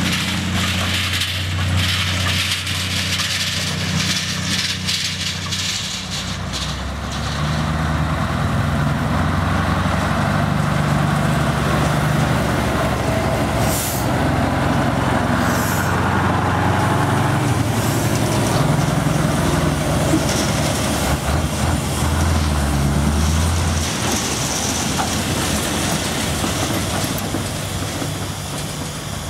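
Scania T500 truck's V8 diesel engine running, its low note shifting as the truck moves. Two short high hisses come about two seconds apart midway.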